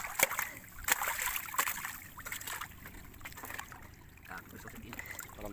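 Water splashing as fish are grabbed by hand in a net fish trap, with several sharp splashes in the first two seconds, then quieter lapping water.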